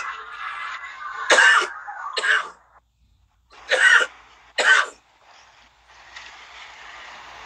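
A man coughing into his fist: four short, sharp coughs in two pairs.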